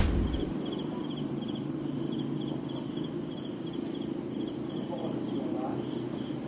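Crickets chirping in a steady pulsed rhythm, about two chirps a second, over a low background hum.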